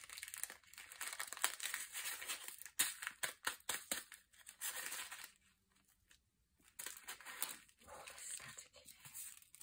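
Small resin diamond painting drills rattling and clicking as they are pushed about on a plastic sorting tray, with a plastic zip bag crinkling. The ticking and rustling stop for a moment a little past the middle, then start again.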